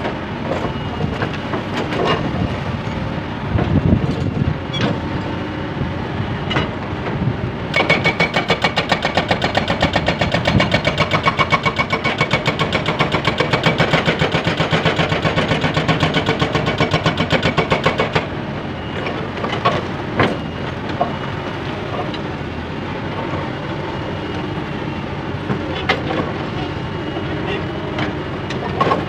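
Caterpillar 320B excavator's diesel engine running. From about eight seconds in, a rapid rhythmic clatter lasts for some ten seconds.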